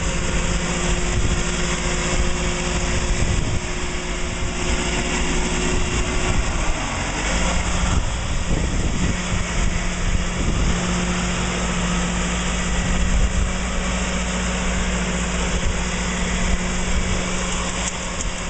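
Allis-Chalmers Model G tractor's small four-cylinder petrol engine running as the tractor is driven slowly. Its pitch drops about six or seven seconds in, then holds steady again.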